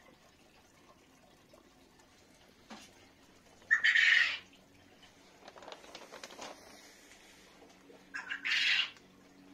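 Two short, harsh bird calls, about four and a half seconds apart.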